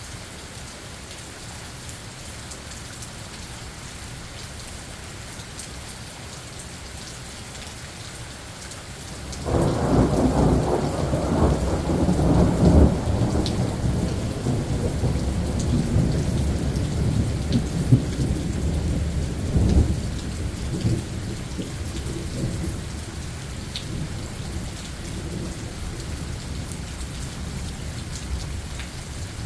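Steady rain falling, then about nine seconds in a loud clap of thunder breaks out and rolls on as a long low rumble, with another sharp crack near the middle, before fading back under the rain.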